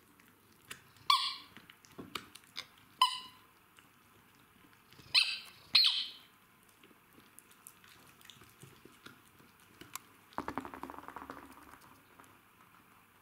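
Red rubber squeaky toy squeaking as a Jack Russell terrier puppy chews it: four short, high squeaks in the first six seconds. A rasping sound follows about ten seconds in.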